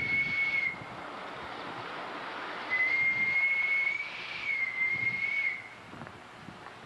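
Steam whistle on the live steam Atlantic-type locomotive #988, one high steady note. The first blast ends shortly into the clip, and a second blast sounds from a few seconds in to near the end, over a hiss.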